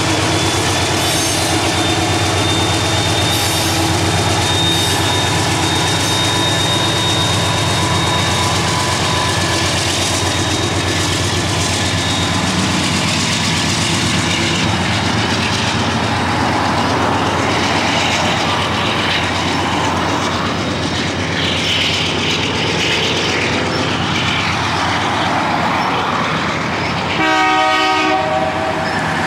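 Canadian Pacific freight train passing: the GE AC4400CW diesel locomotive runs at a steady drone, then a long string of covered hopper cars rolls by with wheels rumbling and clacking over the rail joints. Near the end a horn sounds once for about a second and a half.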